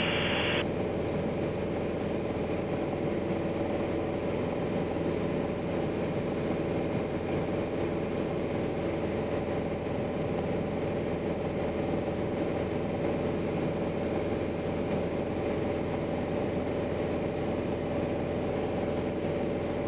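Piper PA-28-180 Cherokee's four-cylinder Lycoming O-360 engine and propeller droning steadily in flight, heard inside the cockpit; the pitch and level hold constant.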